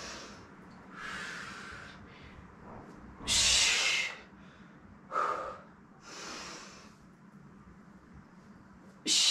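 A woman breathing hard with the effort of dumbbell sumo deadlifts: heavy breaths in and out, with two loud, sharp breaths about six seconds apart.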